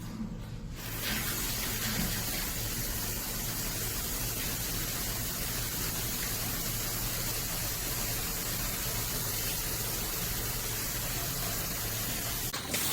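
Water spraying steadily from a filtered shower head, starting about a second in.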